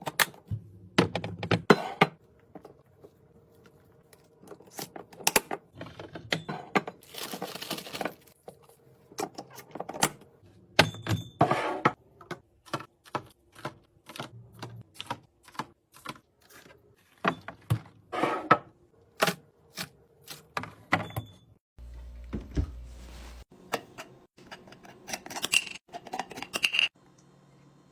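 Items being handled and set down while a fridge is restocked: an irregular run of clicks, knocks and clatters of containers being put in place and moved about.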